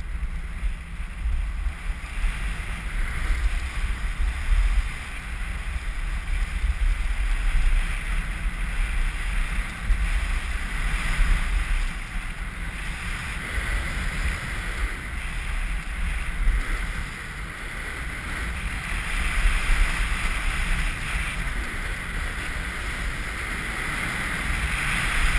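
Wind buffeting the action camera's microphone in a steady low rumble, over the continuous hiss and scrape of a snowboard carving down packed snow, growing a little louder near the end.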